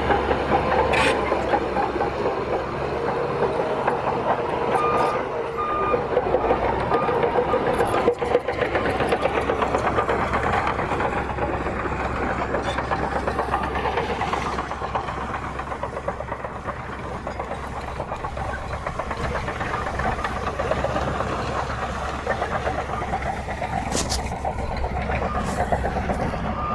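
Crawler bulldozer's diesel engine running under load with its steel tracks grinding and clanking as it pushes earth. A reversing alarm beeps a few times about five seconds in.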